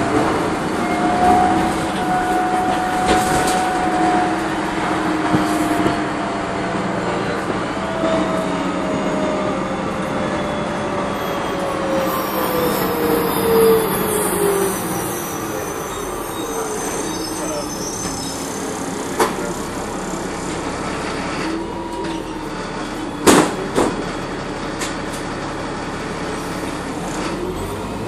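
Inside a city bus with a Voith automatic transmission on the move: steady engine and road noise, with a drivetrain whine that slides slowly down in pitch over about a dozen seconds. Rattles and a few sharp knocks come later, the loudest about two-thirds of the way through.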